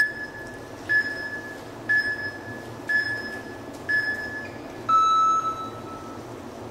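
Smartphone interval-timer app beeping a countdown: five short, high beeps once a second, then one longer, lower beep about five seconds in, which marks the start of the 20-second Tabata work interval.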